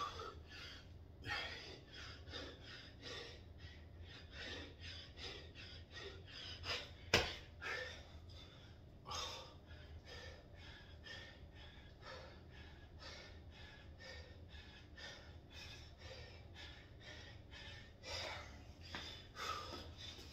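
A man breathing hard and fast in short, rhythmic gasps, out of breath from a hard exercise set. A single sharp knock about seven seconds in.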